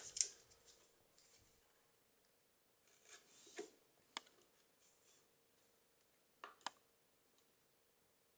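Faint, sparse clicks and short scrapes of hand work on a plastic air filter housing, about half a dozen over the stretch, over a faint steady hum.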